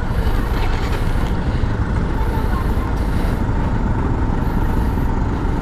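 Honda motor scooter engine idling, a steady low rumble.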